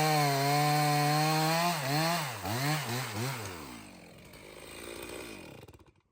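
Stihl 066 two-stroke chainsaw held steady at high revs, then revved up and down several times about two seconds in, before slowing and dying away near the end.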